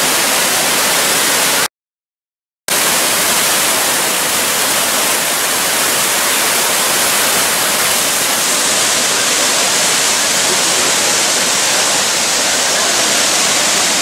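Large waterfall rushing down stepped rock ledges: a steady, loud roar of falling water, broken by about a second of dead silence roughly two seconds in.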